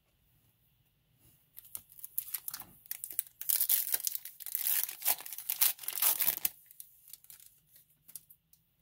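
Foil wrapper of a Topps Chrome baseball card pack being torn open and crinkled. The crackling starts about a second and a half in and is loudest in the middle, followed by a few faint clicks as the cards are handled.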